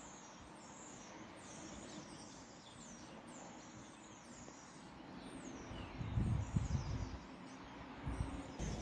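A flock of small birds twittering from the trees, many short high chirps and falling notes overlapping throughout. A brief low rumble on the microphone about six seconds in.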